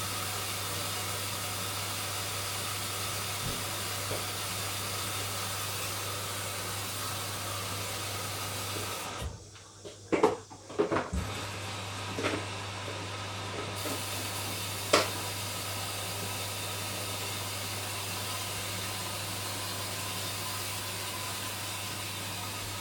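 Hoover washing machine taking in water at the start of its cycle: a steady hiss of inflowing water over a low hum. About nine seconds in the hiss drops out for a few seconds with several knocks, then comes back; there is a single click a little later.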